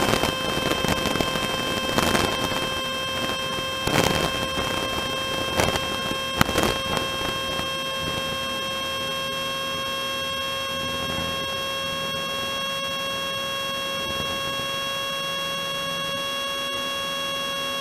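Robin DR400 light aircraft's piston engine and propeller at full takeoff power during the takeoff roll, heard as a steady, even-pitched whine and hum over a noise bed. There are a few sharp knocks within the first seven seconds.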